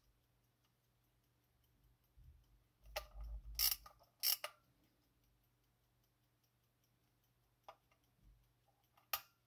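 Soviet 60ChP aircraft cockpit clock ticking faintly while its knobs are worked: a loud run of ratcheting mechanical clicks about three seconds in, then two sharp single clicks near the end as the chronograph start button is pressed.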